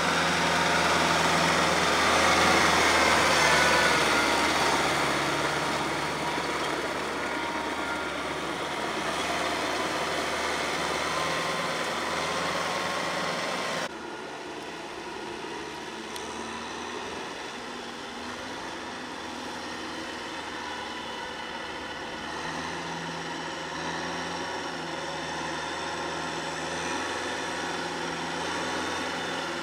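Kubota M6040SU tractor's four-cylinder diesel engine running steadily as it works through a wet paddy field, with the rotary tiller churning the mud. The sound steps down abruptly in loudness about halfway through.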